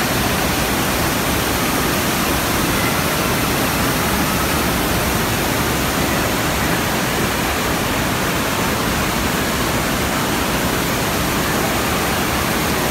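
Steady rush of churning water pouring from a tube water slide into its splash pool.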